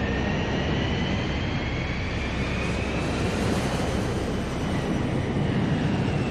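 Boeing 747 jet engines at takeoff power: a steady loud rushing noise with a high whine that rises in pitch, then starts to fall near the end as the jet goes past.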